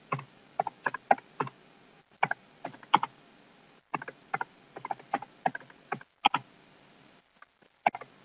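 Computer keyboard typing: a run of short, irregular keystrokes with a lull of about a second near the end.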